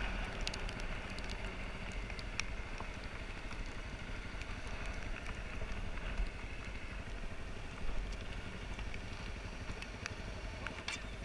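Dirt bike engine running at low speed on a gravel track, a steady low rumble under a noisy haze, with a few sharp clicks.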